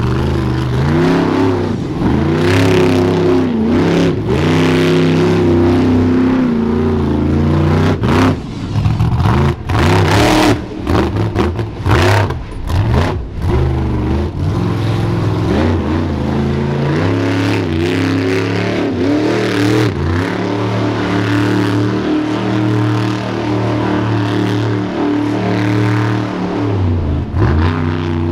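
Monster truck engine revving hard, its pitch climbing and falling as the throttle is worked. About a third of the way in comes a choppy stretch of sharp cracks and brief cut-outs, then the engine runs on more steadily.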